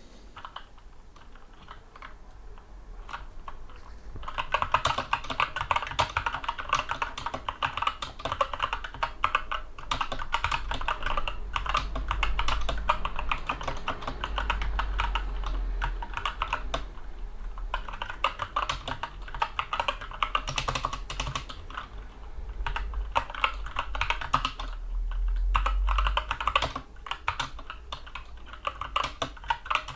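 Typing on a Skyloong SK64 mechanical keyboard with Gateron Brown tactile switches. A few scattered keystrokes come first, then fast continuous typing from about four seconds in, broken by a couple of brief lulls.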